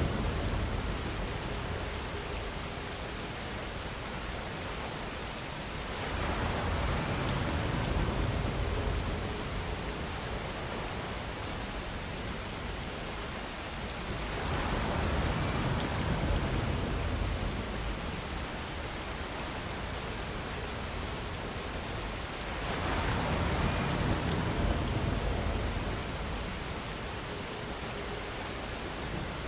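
Steady heavy rain with wind. The noise swells louder and deeper three times, about every eight seconds.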